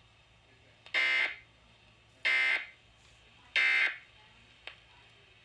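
Emergency Alert System end-of-message data bursts marking the end of the alert: three short, buzzy digital bursts of equal length, about 1.3 seconds apart.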